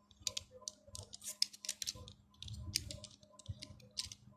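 Light, irregular clicks, taps and short rustles of a small diecast toy car and its plastic packaging being handled.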